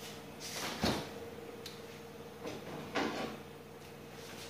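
A few short soft knocks, the clearest about a second in and another about three seconds in, over a faint steady hum.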